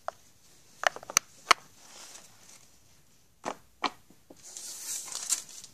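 Handling noise close to the microphone: several sharp clicks and taps, then the rustle of a sweatshirt sleeve brushing past near the end.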